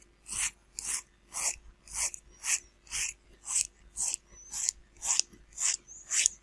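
Regular rasping strokes by hand, about two a second, working down the 3D-printed plastic of a model plane's nose-gear pivot, which turns too stiffly.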